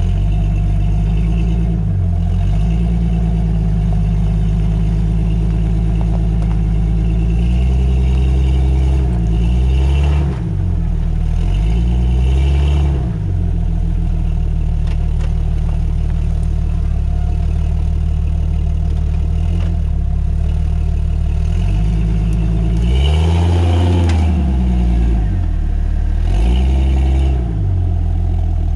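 A vehicle engine running with a steady low drone, its pitch briefly bending up and down several times.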